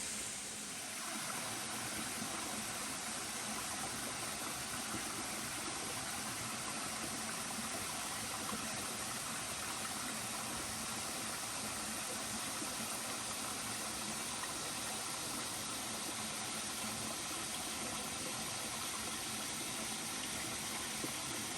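Steady rush of flowing water, an even hiss with no pauses.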